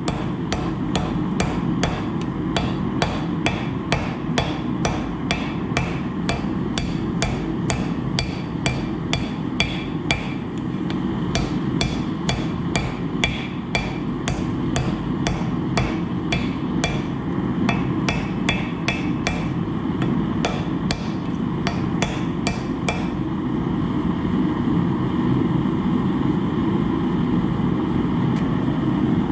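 Hammer blows on hot steel while forge-welding a fluxed hatchet, firm and even at about two a second, each with a short ring. The hammering stops about 23 seconds in, leaving a steady low rushing noise.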